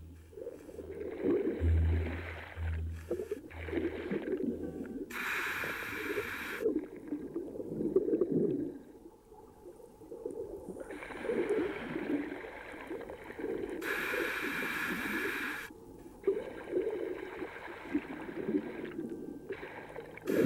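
Scuba diver breathing through a regulator underwater: a hiss of about a second and a half on each inhale, twice, with stretches of bubbling gurgle from the exhaled bubbles in between.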